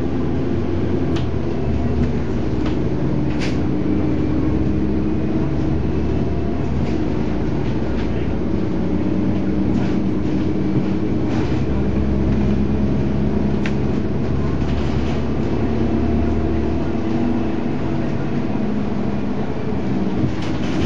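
Diesel engine of a Volvo Olympian 12M double-decker bus running as the bus drives along, heard from inside. The engine note steps up and down in pitch a few times, with scattered sharp clicks and rattles.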